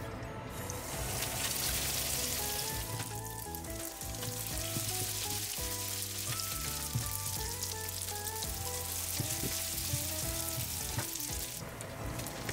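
Rice-flour bread rolls deep-frying in hot oil: a steady crackling sizzle that starts about a second in and eases near the end, with background music underneath.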